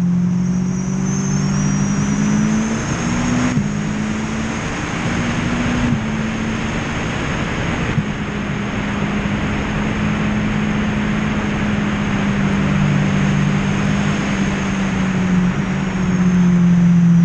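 Yamaha R1 sportbike's inline-four engine pulling hard on track, stepping through several gear changes in the first six seconds and then holding a steady note. Wind rush on the onboard microphone builds along the straight, and the engine note comes up louder again near the end.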